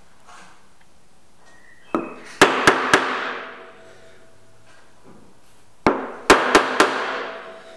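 Light hammer taps on a dot punch, marking dots into a sheet-metal panel through a template. There are two groups of about four quick taps, one about two seconds in and one near six seconds, and each group leaves the metal ringing briefly.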